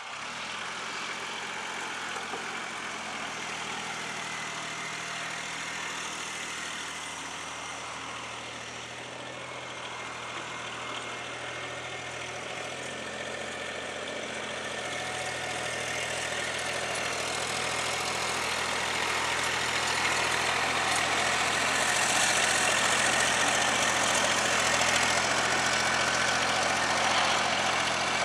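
An engine idling steadily at an even pitch, growing louder from about halfway through.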